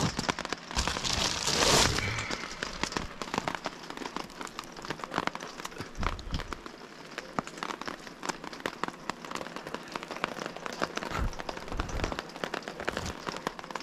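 Rain falling on a pop-up camper, heard from inside: a dense, irregular spatter of drop ticks, with a brief louder rush about a second or two in.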